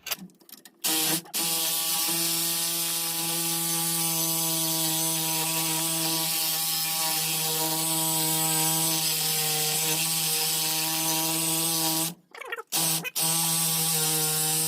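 Sawzall reciprocating saw cutting through a steel bolt: a steady motor drone with a high hiss from the blade. It stops briefly about twelve seconds in, then starts again. The cut goes slowly, which the user puts down to a possibly trashed blade.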